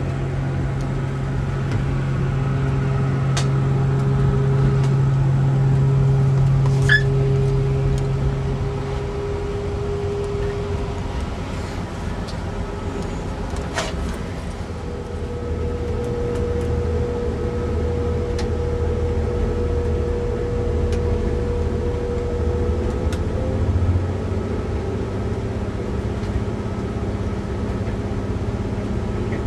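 Cabin noise inside a moving Class 175 diesel multiple unit: a steady low rumble from the wheels on the rails and the underfloor diesel engine. A low engine hum drops away about nine seconds in, and a higher steady whine runs for several seconds in the middle part, with a few brief clicks and creaks along the way.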